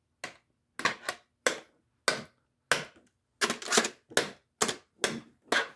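Repeated sharp knocks and taps, about a dozen at roughly two a second, some in quick pairs: the extended metal telescoping antenna of a cordless phone base being jabbed about and knocking against things.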